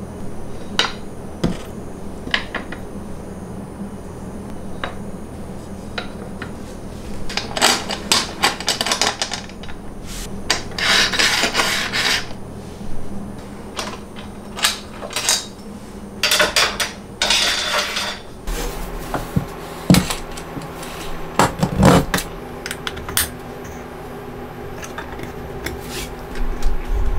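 Metal hardware being handled and fitted: aluminium extrusion rails, steel brackets and bolts, tightened with a hex key. Scattered clicks and clinks, with two stretches of rattling and scraping and a few sharper knocks past the middle, over a steady low hum.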